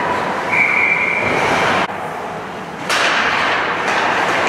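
Ice hockey rink noise: a steady wash of skating and crowd sound in an arena. A steady high tone is held for about a second near the start. The sound drops away abruptly just before the middle and returns sharply about a second later.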